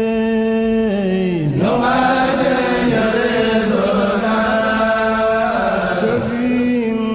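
Chanted vocal in Arabic, mostly long held notes. About a second and a half in the voice slides down in pitch and the sound fills out, then it settles back onto a steady held note near the end.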